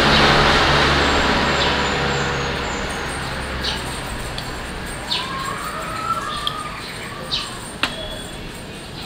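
A vehicle engine rumbles steadily and fades out over the first few seconds. Then a metal spoon clinks against a glass jar of coffee several times as coffee is scooped out, with one sharper clink near the end.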